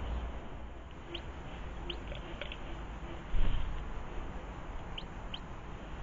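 Short, high chirps from small garden birds: several in the first half and a pair about five seconds in, over a steady low rumble. A brief low thump about halfway through is the loudest sound.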